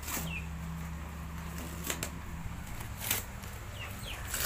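Gift-wrapping paper being torn and crinkled off a box by a small child: soft rustling with a few sharp rips, over a low steady hum.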